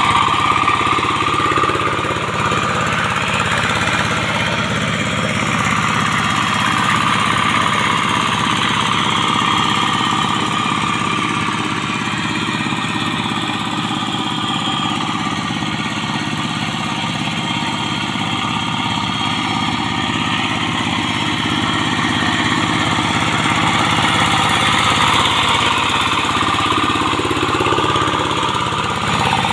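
Bored-out single-cylinder Yanmar TF diesel engine of a Quick TL800 two-wheel hand tractor, running steadily under load as the tractor's cage wheels work a flooded rice paddy.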